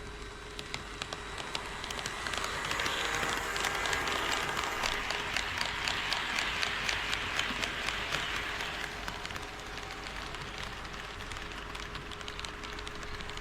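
HO scale model train rolling past on KATO Unitrack, its wheels clicking rapidly and regularly over the rail joints. The rolling sound builds from about two seconds in, is loudest in the middle and eases off toward the end.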